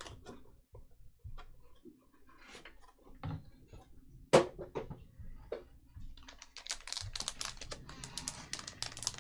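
Crinkling and crackling of a foil trading-card pack wrapper as it is handled and torn open, starting about two-thirds of the way in and getting denser. Before that, scattered light clicks and one sharp tap about halfway.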